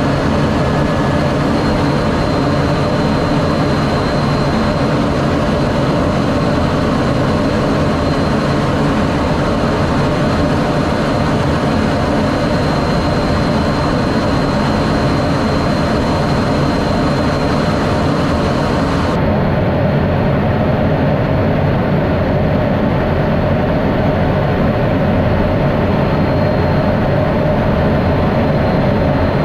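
Steady jet noise of an F-16D fighter, engine and rushing air with a thin high whine over it. About two-thirds of the way through, the treble drops away abruptly while the low noise carries on.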